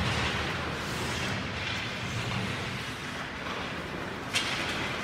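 Ice hockey arena ambience: a steady wash of skates scraping the ice and hall noise, with one sharp crack of the puck about four seconds in.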